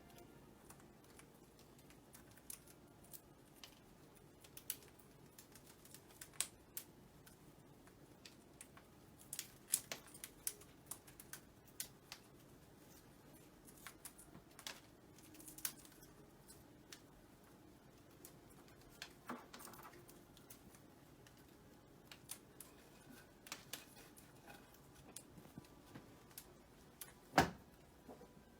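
A parrot's beak pecking and working at a toy: faint, scattered, irregular sharp clicks and taps, with one louder click near the end.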